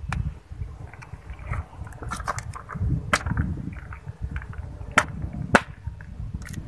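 A cat chewing and tearing at food: irregular wet clicks and smacks, with a few louder sharp ones about three, five and five and a half seconds in.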